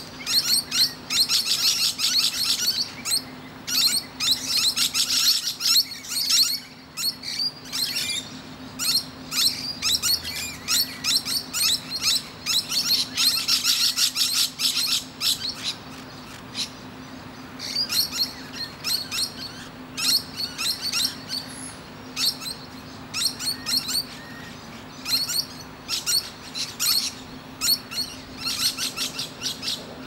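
Musk lorikeets chattering: rapid runs of short, high-pitched screechy calls in bursts of a few seconds with brief lulls between. A faint steady low hum lies under them.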